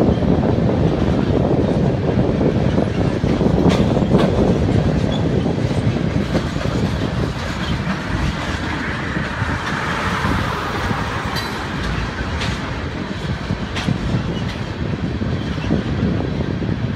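Freight train of tank cars rolling past: a steady rumble of steel wheels on the rails, with a few sharp clacks as wheels pass over rail joints.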